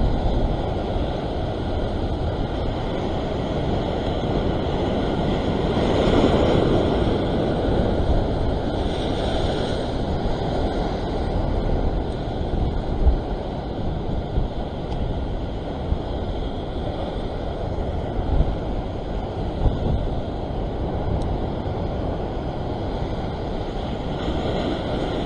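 Rough surf breaking and washing over shoreline rocks in a steady rush, swelling louder about a quarter of the way in and again near the end, with wind buffeting the microphone in a few short low thumps.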